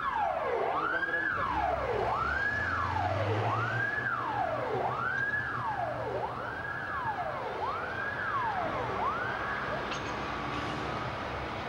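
Fire engine siren wailing: each cycle falls in pitch over about a second, then quickly rises again. It repeats about seven times, then stops near the end. A low engine hum runs underneath for the first half.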